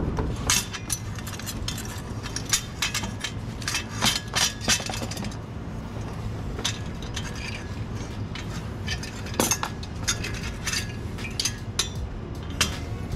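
Stainless-steel exhaust downpipe and its V-band flange clinking and knocking against metal parts as it is worked into place: a run of irregular, sharp metallic clinks.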